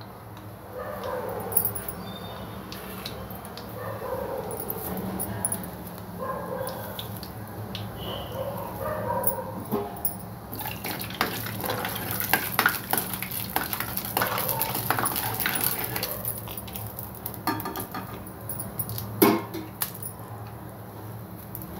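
Mustard seeds sizzling in hot oil in a kadai, breaking into a dense run of sharp pops and crackles from about ten seconds in as the seeds splutter. In the first half there are wavering whining calls.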